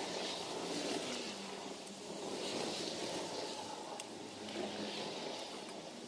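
Outdoor background noise with a faint steady hum, and one sharp click about four seconds in as metal grill tongs touch the grate.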